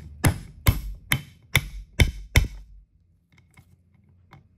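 Small metal hammer tapping on a socket, six sharp taps about two a second, driving a small bearing into a Talaria Sting gearbox case by its outer race. The tapping stops a little past halfway.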